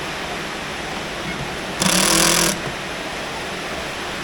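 Steady hiss of heavy rain, with a brief whir of a small electric motor lasting under a second, about two seconds in.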